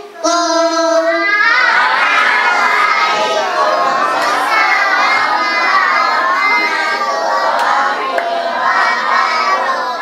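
A child sings a held note into a microphone, then a crowd of children shouts and cheers, many voices at once.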